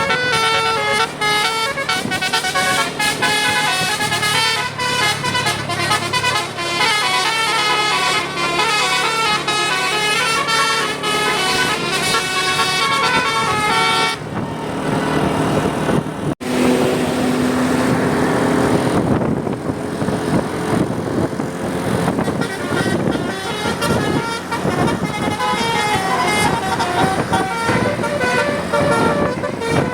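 Bus-mounted Basuri 'telolet' musical air horns playing a fast melody of short stepped notes. After an abrupt break about 16 seconds in, the sound turns noisier with engine and street noise, and the horn tune returns near the end.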